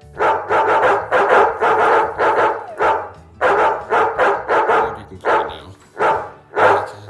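Pet dogs barking at the same time: a loud, rapid run of barks, about three a second, that goes on without a break.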